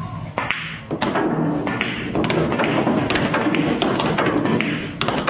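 Pool balls clicking: a cue tip hitting the cue ball and balls knocking together, many sharp clicks at uneven intervals over a steady background of noise.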